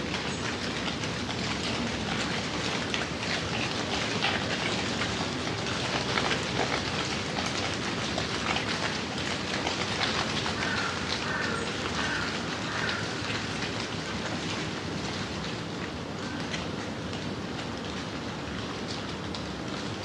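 Steady rain falling, with many close drops ticking on hard surfaces. A bird gives a few short calls about halfway through.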